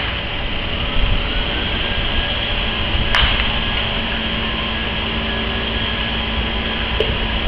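A baseball bat cracking against a pitched ball once, about three seconds in, with a fainter knock near the end, over a steady background rumble and hiss.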